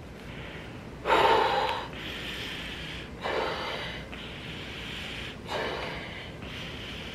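Someone blowing up an inflatable travel pillow by mouth: three sharp breaths, about two seconds apart, each followed by a long steady blow into the pillow's valve.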